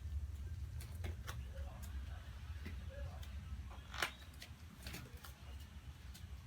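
Light clicks and taps of small objects being handled over a low steady hum, with one sharper click about four seconds in.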